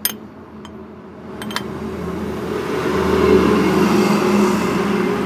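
A motor vehicle engine running close by, swelling louder from about a second and a half in and then holding steady, with a couple of light metallic clinks early on from the propeller-shaft coupling flange being handled.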